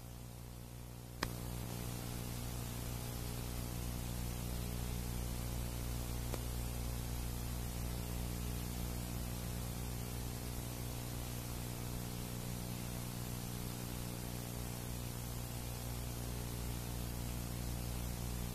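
Steady electrical hum under hiss on the soundtrack. There is a click about a second in, after which the hiss gets louder and stays steady.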